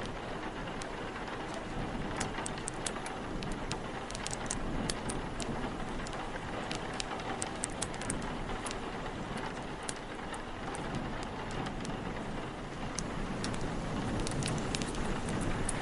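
Steady rain and wind, with frequent sharp crackles and pops from a wood fire scattered throughout.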